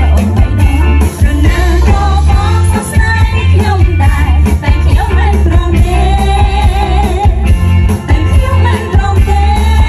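Women singing a Khmer song into microphones over a live band's accompaniment with a heavy, steady bass beat.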